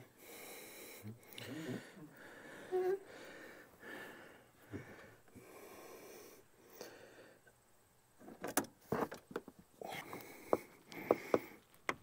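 A person breathing heavily close to the microphone, in repeated breaths about a second long. Near the end come several sharp clicks and knocks of parts being handled.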